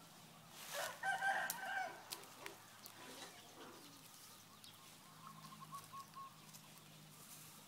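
A rooster crowing once, about a second in, a pitched call lasting about a second, over faint background.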